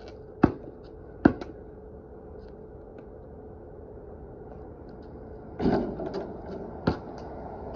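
Scattered sharp knocks from basketball play on a concrete driveway: two knocks about a second apart near the start, then a short scuffling clatter and one more knock near the end. A faint steady hum runs underneath.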